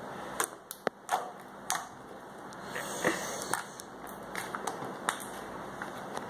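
Slime being squeezed and stretched by hand, giving a dozen or so irregular sharp clicks and pops.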